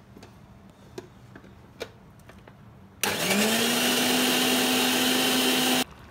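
Prestige mixer grinder blending a jar of curd: a few light clicks as the steel jar is seated on the base. Then, about three seconds in, the motor starts with a brief rising whine, runs steadily for nearly three seconds and cuts off suddenly.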